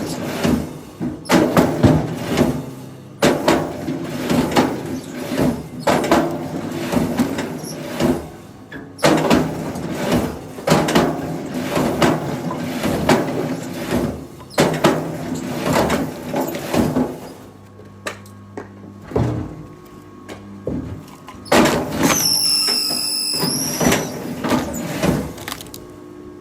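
Machinery working, with repeated irregular knocks and clatter over a steady engine-like hum, and a brief high squeal near the end.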